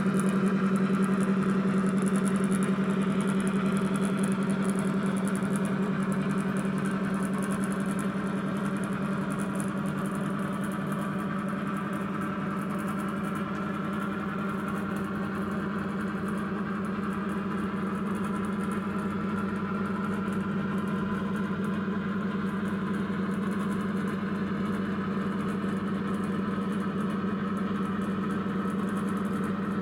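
Sound-chip recording of the DP1 Deltic's Napier Deltic diesel engines, played through the small speaker in a Bachmann OO gauge DP1 model locomotive as it runs slowly away. The engine drone is steady and pitched; it fades a little over the first ten seconds or so, then holds level.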